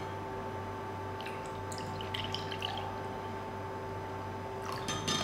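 Juice poured from a large plastic bottle into a drinking glass: a faint trickle and splash over a steady low hum, with a few light clicks near the end.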